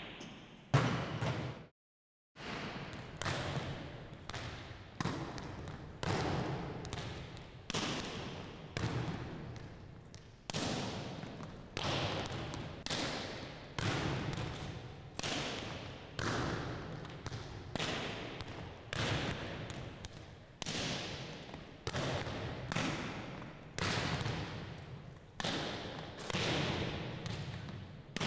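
Volleyballs being struck and bouncing on a hardwood gym floor: sharp smacks about once a second, each ringing out in the gym's echo. The sound cuts out completely for a moment about two seconds in.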